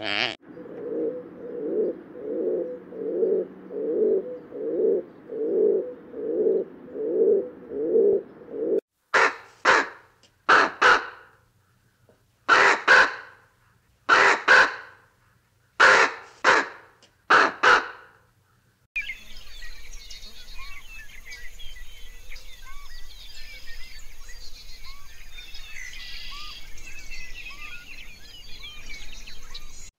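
For the first nine seconds there is a regular run of low, pulsing animal calls, about one and a half a second. Then a crow caws in quick pairs, six pairs in about nine seconds. After that come faint chirps of small birds over a steady high hiss.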